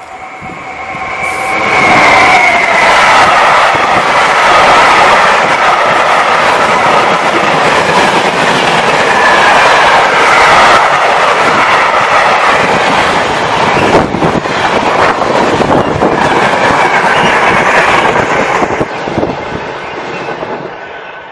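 Class 66 diesel-electric locomotive passing at speed with a freight train of empty flat wagons. The sound swells over the first two seconds as the locomotive goes by, with a high whine. Then comes a long, steady rumble and clatter of wagon wheels over the rail joints, which fades in the last couple of seconds as the train draws away.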